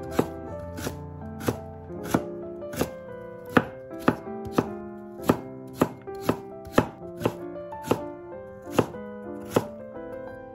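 Kitchen knife chopping carrot and then potato on a wooden cutting board: sharp, unevenly spaced knocks of the blade on the board, about one and a half a second. Soft background music plays under the chopping.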